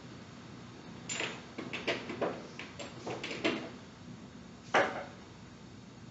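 A run of off-camera knocks and clatters, like things being handled or a drawer or door being moved, starting about a second in, then one louder knock near the end, over a faint steady hum.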